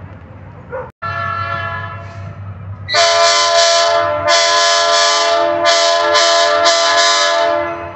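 Diesel locomotive's air horn blowing a chord of several tones: a softer steady sounding at first, then from about three seconds in a loud, long blast of about five seconds with a few brief dips, stopping just before the end.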